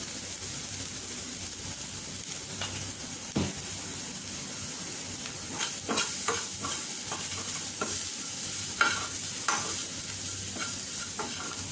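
Chopped onions and green chilli sizzling in oil in a non-stick frying pan. A spatula stirs them, knocking once early and then scraping and tapping against the pan repeatedly from about halfway through.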